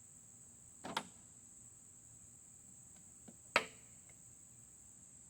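Steady high-pitched trill of crickets. Two sharp knocks break through it, about a second in and again past the middle, the second one louder, as parts are handled on a small mower engine being taken apart.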